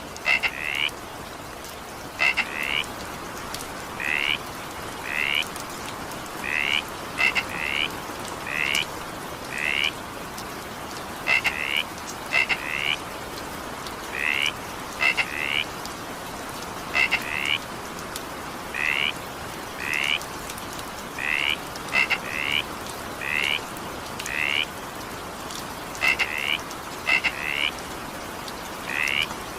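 A frog calling over and over with short high croaks, singly or in quick twos and threes about once a second, over the steady hiss of rain.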